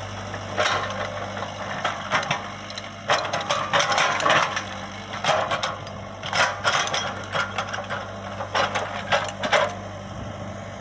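Komatsu PC75UU excavator's diesel engine running steadily, with irregular bursts of metallic clanking and rattling over it.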